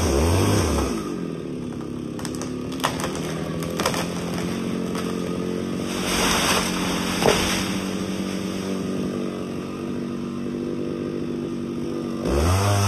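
Chainsaw revving, then dropping to a steady idle about a second in and running there, with a few sharp knocks and a brief rustle in between. It revs up loudly again near the end.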